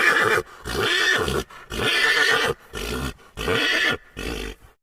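An animal calling in a series of short, harsh, pitched calls, about one a second, each well under a second long, like the neighing of a horse-family animal.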